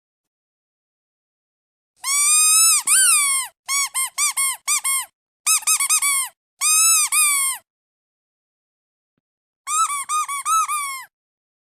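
Squeaky duck toy being squeezed, giving runs of high squeaks: some long with a bending pitch, others short and quick in a row. The squeaks start about two seconds in, pause for about two seconds past the middle, and resume near the end.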